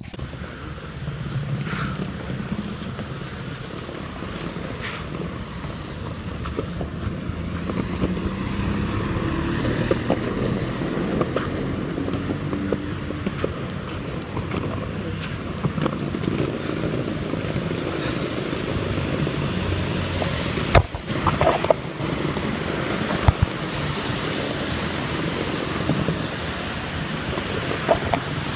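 Heavy rain with wind buffeting the microphone: a loud, steady rushing noise with a low rumble underneath and a few scattered knocks.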